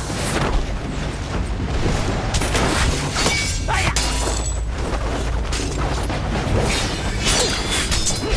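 Staged swordfight sound effects: a fast run of impacts, whooshes and short metallic clangs from swords, over a steady low rumble of background music.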